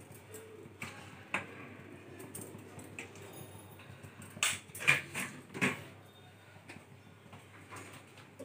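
Small kitchen handling sounds: scattered clicks and clinks of spice jars and steel plates being picked up and set down, with a cluster of sharper knocks about four and a half to six seconds in.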